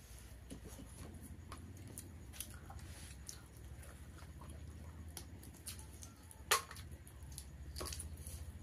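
Two people eating rice with their fingers: mouth sounds of chewing and small wet clicks and smacks, with one sharper click about six and a half seconds in, over a steady low hum.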